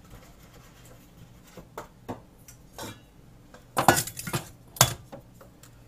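Kitchen clatter of dishes and a stainless steel mixing bowl being handled: scattered light clicks, then a burst of sharp metallic clanks about four seconds in as the bowl is set down, and one last knock just before five seconds.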